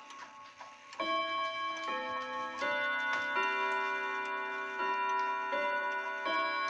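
Howard Miller Barwick grandfather clock's hammers striking its long chime rods in a chime melody. The melody starts about a second in, with about one note every 0.7 s, each note ringing on under the next, over the tick of the movement.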